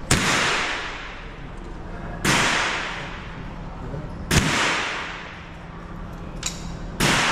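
Four single gunshots at a shooting range, spaced about two to two and a half seconds apart. Each sharp crack is followed by a long echoing decay.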